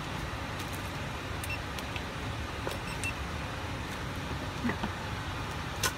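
Steady low rumble of a car heard from inside its cabin, with a few light clicks scattered through it.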